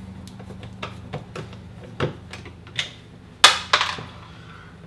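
Screwdriver tapping, scraping and clicking against the screws and plastic-and-metal mounting parts of an LED ceiling light fixture as it is lined up and screwed to the electrical box, with a sharper knock about two seconds in and a louder double knock about three and a half seconds in. A low steady hum runs underneath.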